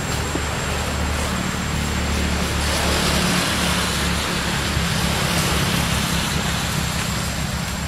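Steady engine drone that swells about three seconds in and eases off toward the end.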